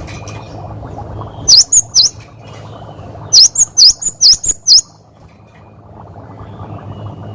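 A cinereous tit (gelatik batu) calling 'wucit wucit'. First comes a pair of sharp, high whistled notes that dip and rise, then a quick run of five more about halfway through. A steady low hum runs underneath.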